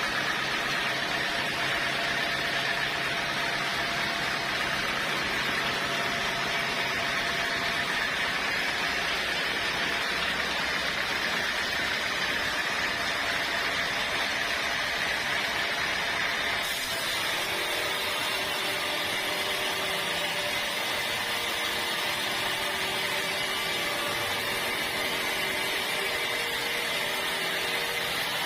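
Sawmill saw running steadily through teak logs, a continuous machine noise with a steady hum. The sound changes suddenly about two-thirds of the way through, taking on a brighter hiss and a different hum.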